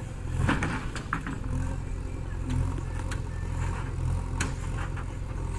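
JCB 3DX backhoe loader's diesel engine running steadily under work, with a few sharp clanks at irregular intervals.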